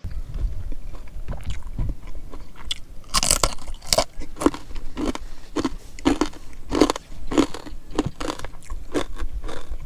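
Close-miked chewing of crunchy food, a steady run of crunching bites about two a second.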